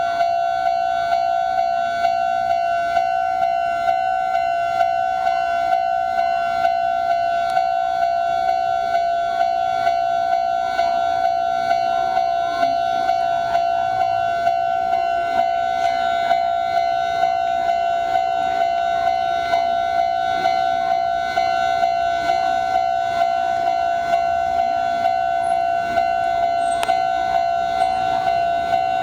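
Japanese railway level crossing's electronic warning bell ringing, an evenly repeating pitched tone warning that a train is approaching.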